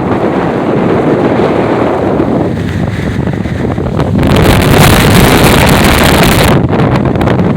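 Very high wind blasting the microphone in a loud, steady rush, with a stronger gust from about four seconds in that eases off near the end.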